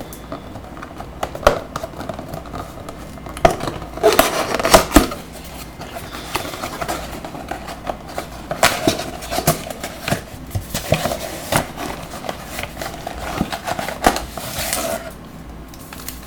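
A Bowman Mega Box of baseball cards being opened by hand: a run of sharp clicks and taps with crinkling and rustling of cardboard and wrapping.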